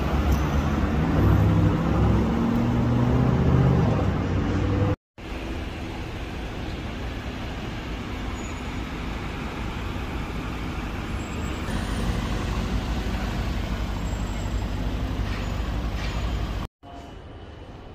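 Lamborghini Urus twin-turbo V8 pulling away, its engine note stepping up in pitch under throttle. After a sudden break, a low exhaust rumble from a passing Urus in street traffic swells louder toward the end, then cuts off sharply.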